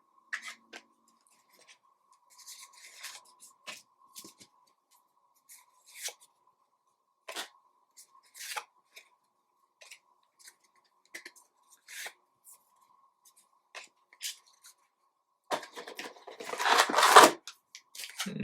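Trading cards and foil packs being handled, with scattered soft clicks and rustles. Near the end comes a louder rustling tear, a card pack wrapper being torn open. A faint steady tone runs underneath.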